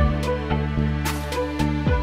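Background music: a steady beat with deep bass notes that slide downward and bright percussion hits.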